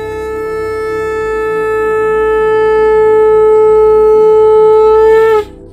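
One long blown horn note held at a single steady pitch, slowly growing louder, then cutting off suddenly near the end. Faint background music plays underneath.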